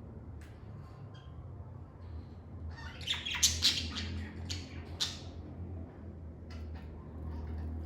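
Lovebirds giving high-pitched squawks and chirps: a few single chirps, then a quick flurry of calls about three seconds in, then more scattered chirps, over a steady low hum.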